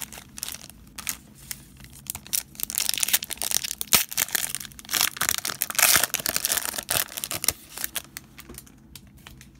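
Shiny foil trading-card pack wrapper being torn open and crinkled by hand: a dense crackling, busiest in the middle and dying away near the end.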